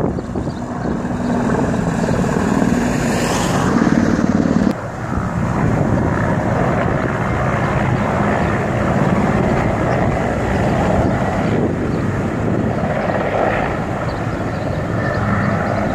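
A helicopter flying past, a steady drone of rotor and engine.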